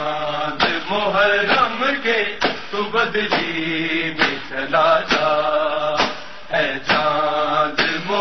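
Male voices chanting a noha, a Muharram lament, in long sung phrases over an even thumping beat a little more than once a second.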